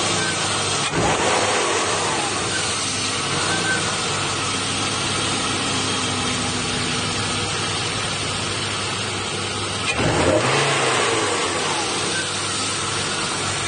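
BMW E36 320i's M50 inline-six engine running with a weak ignition coil fitted, which the owner says makes it stutter slightly at low revs under throttle. It is revved briefly twice, about a second in and again about ten seconds in, each time rising and falling back to a steady idle.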